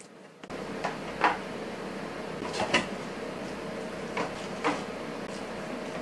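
Small paper drink cartons being set down and pushed into clear acrylic organizer bins: a series of sharp knocks and taps, about six in all, the loudest about a second in and near the middle. A steady hum runs underneath from about half a second in.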